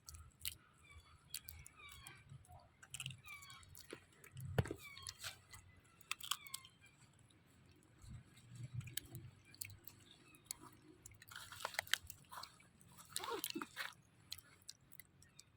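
Baby monkey chewing and biting food, a run of irregular wet crunches and clicks close to the mouth. Short high squeaks come in the first few seconds.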